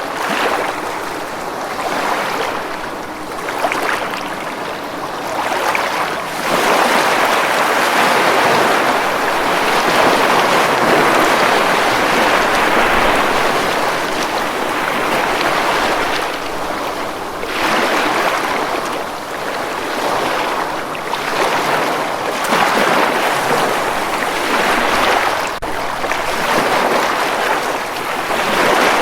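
Ocean waves breaking and washing up a beach: a rushing surf that swells and fades, with a long, louder wash starting about six seconds in.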